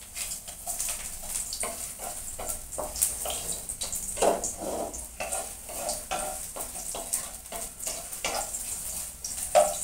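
Sliced ginger frying in hot oil in a wok, a steady sizzle, while a wooden spatula stirs it, scraping and knocking against the pan again and again.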